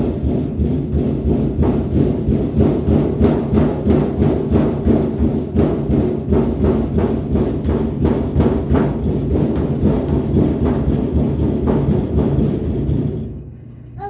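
A small child's fists drumming rapidly on the sheet-metal side panel of a washing machine, speed-bag style, several hits a second, stopping about a second before the end.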